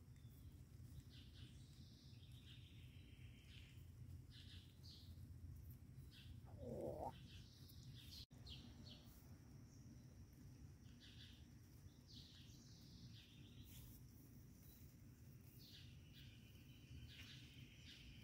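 Faint outdoor ambience with wild birds chirping and calling, many short high chirps throughout, over a low steady background hum. A short rising squeak about seven seconds in is the loudest sound.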